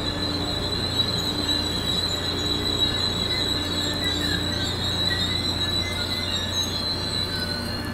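Amtrak Acela Express trainset rolling slowly, its wheels giving a steady, slightly wavering high-pitched squeal over a low steady hum.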